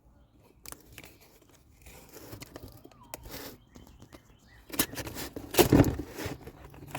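Rustling and clattering handling noises with scattered clicks, loudest in a short burst about five to six seconds in.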